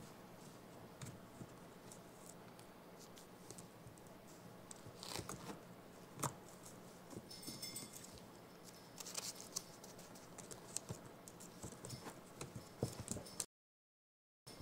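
Faint scattered taps, clicks and rustles as a baby capuchin monkey paws at a mirror and moves about on a blanket-covered couch. The sound cuts out completely for about a second near the end.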